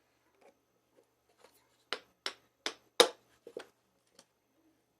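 Lee Loader decapping rod being tapped with a mallet to knock the spent primer out of a .30-40 Krag case: four sharp taps about a third of a second apart, the fourth loudest, then a few lighter clicks.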